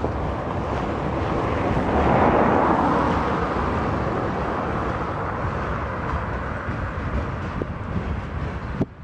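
A car passes on a snow-covered road, its tyre and engine noise swelling about two seconds in and then fading as it drives away, over the steady low rumble of a freight train of log wagons rolling by. The sound cuts off suddenly near the end.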